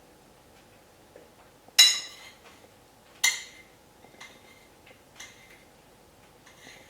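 Hard tableware clinking: two sharp, ringing clinks about two and three seconds in, followed by a few fainter ones.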